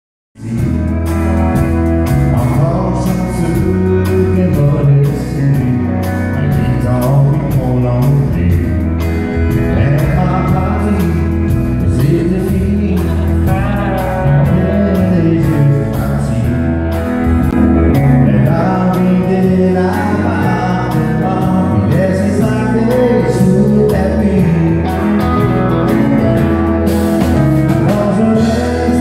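A live country band playing with a steady beat: pedal steel guitar, acoustic and electric guitars, drums and keyboard.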